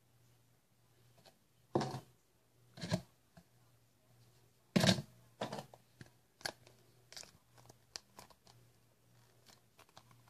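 Handling noise: a plastic glue bottle and a cardboard box moved and gripped close to the microphone. There are sharp crinkly knocks about two, three and five seconds in, then lighter clicks and rustles.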